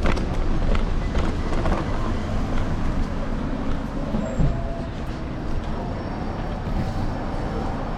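Steady low rumble of wind and road noise on a camera mounted on a moving electric scooter's handlebars, with city traffic around it.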